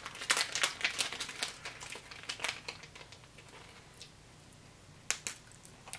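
Crinkling and light clicking of plastic and foil packaging being handled, crowded in the first three seconds, then dying down to two single sharp clicks near the end.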